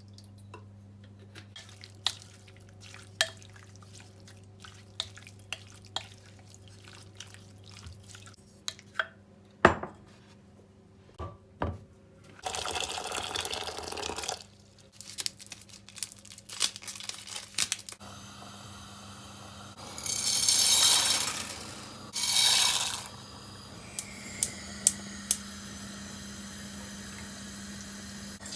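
Kitchen sink work: dishes and utensils clinking and knocking, then the tap running in short spells, the two loudest in the second half.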